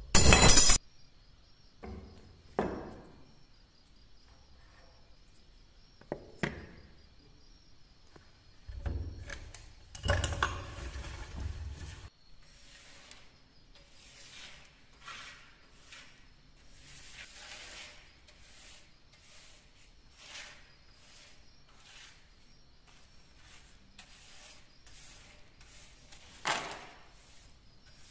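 Hammer blows on a steel punch set against a rusty antique dagger clamped in a steel bench vise, the loudest right at the start. Then scattered metal clinks, scraping and brushing as rust debris is swept off the wooden workbench, with one sharper knock near the end.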